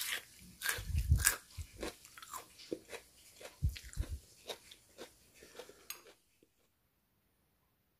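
Crisp crunching of lightly cooked chorogi (Chinese artichoke) tubers: a quick run of sharp crunches with a few deep thuds, stopping about six seconds in.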